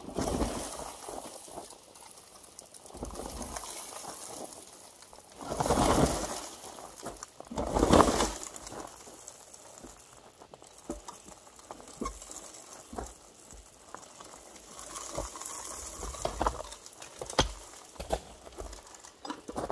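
Crushed stone ballast pouring out of a small railway hopper car onto the track in several gravelly rushes, the loudest about eight seconds in, followed by scattered clicks and clatters of loose stones.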